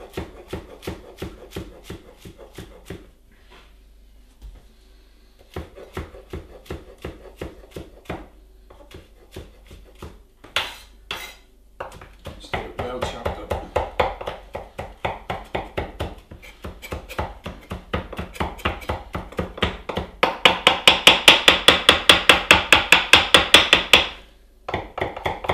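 Kitchen knife chopping basil on a wooden chopping board: a run of quick taps of the blade on the board, with a short pause a few seconds in. Near the end comes a louder stretch of rapid chopping, about seven or eight strokes a second.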